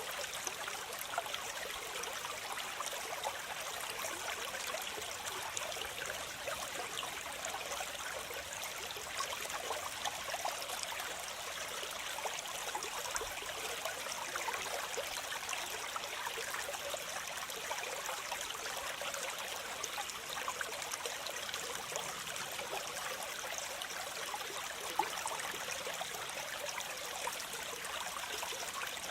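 Waterfall: water splashing and rushing steadily, a continuous splashy hiss with little low rumble.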